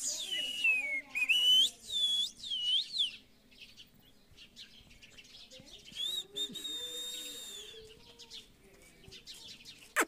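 Rose-ringed parakeet (Indian ringneck) giving a run of loud whistled calls that sweep up and down in pitch in the first three seconds, then a longer, steadier whistle about six seconds in.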